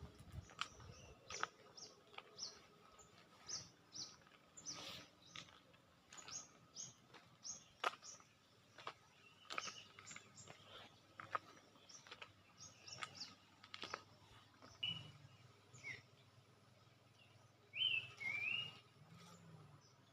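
Small birds chirping: a string of short, high chirps at irregular intervals, with a louder call near the end.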